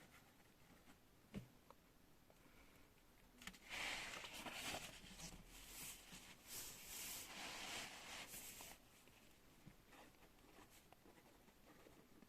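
Pen scratching across paper in a run of quick, uneven strokes for about five seconds, starting a few seconds in. A single light tap comes before it.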